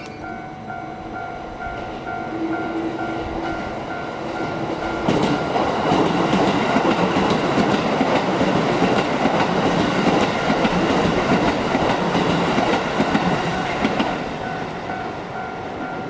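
Level-crossing electronic warning bell dinging about twice a second. About five seconds in, an electric commuter train passes over the crossing for roughly nine seconds, its wheels clattering over the rail joints and drowning out the bell, which is heard again once the train has gone by.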